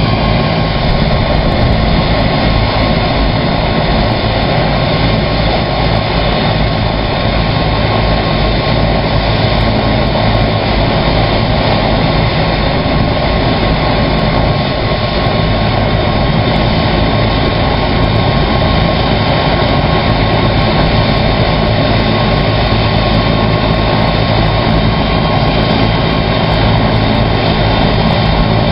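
Bell 206 helicopter's turbine engine and two-blade main rotor running steadily at ground idle, a constant high whine over a dense rumble.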